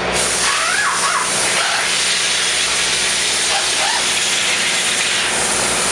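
Steady loud hiss, like air or spray under pressure, with faint voices in the background.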